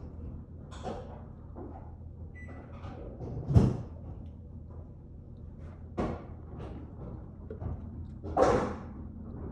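A few irregular knocks and thumps, the loudest about three and a half seconds in, over a low steady hum.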